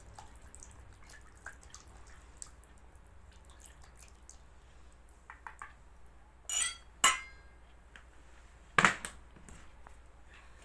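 Faint ticks of a wire whisk stirring liquid batter in a plastic bowl. Then two sharp metallic clinks with a brief ringing as the whisk is laid on a metal tray among glasses, and a single thump near the end.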